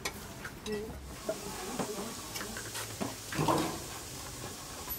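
Indistinct background voices with a few light knocks and clatters, as of dishes and utensils.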